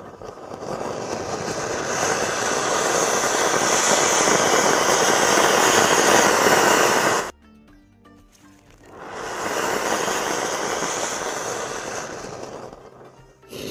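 Anar (flower-pot firework) fountain spraying sparks with a loud, steady hiss that builds over the first couple of seconds. It cuts off suddenly about seven seconds in, then starts up again under two seconds later and fades near the end.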